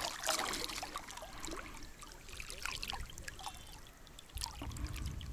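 Faint trickling and splashing water with scattered small clicks and rustles, as a just-caught vobla is brought in from the river.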